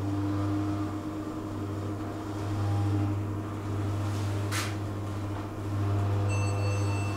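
Elevator running between floors: a steady low hum from the drive, with a short hiss about four and a half seconds in and thin high electronic tones joining near the end.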